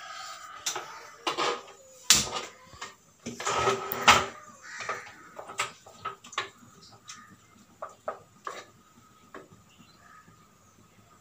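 Pot and metal utensils clattering in a kitchen: a run of separate knocks and clinks, loudest about two and four seconds in, growing sparser and fainter toward the end.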